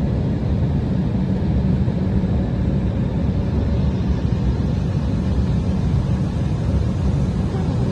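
Jet airliner cabin noise: a steady low rumble of the engines heard from inside the passenger cabin, deep and even, with little hiss above it.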